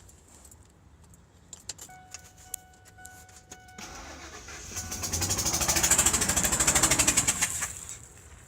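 Key clicks and a steady tone, then a car engine's starter cranking it in a fast, even run of pulses that swells and cuts off after about four seconds without the engine settling into a run. The engine has a spark plug blown out of its hole, so each compression stroke puffs out through the open plug hole, a sound the owner says can pass for a rod knock.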